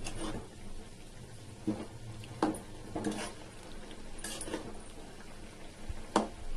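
Thick drumstick-and-raw-mango curry boiling on a high flame: about half a dozen soft pops of bubbles bursting through the gravy, scattered irregularly over a low steady hum.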